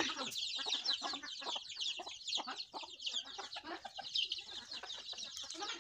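Chickens clucking, against a dense, steady chorus of high chirps.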